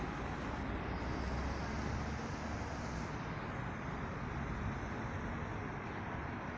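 Steady road traffic noise from passing cars, with a deeper low rumble in the first couple of seconds.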